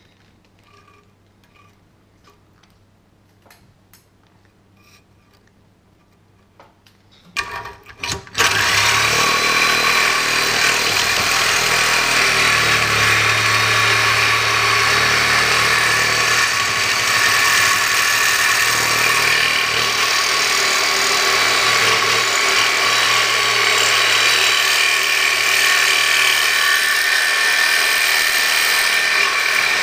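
Faint handling clicks, then a reciprocating saw triggered in a few short bursts about seven seconds in and running steadily from about eight seconds on. A thin, standard bi-metal blade, lubricated, is cutting hardened leaf spring steel, and its teeth are being worn away.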